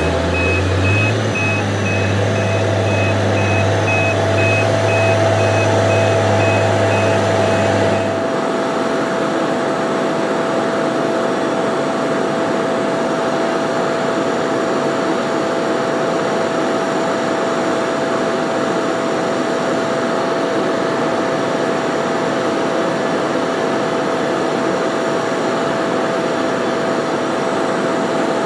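Heavy truck engine running with a back-up alarm beeping in quick succession. About eight seconds in, the sound changes abruptly to a steady drone of machinery with a constant mid-pitched whine.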